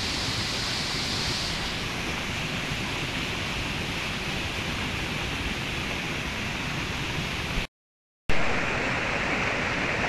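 Mountain stream water rushing steadily. It drops out to dead silence for just under a second about eight seconds in, then comes back.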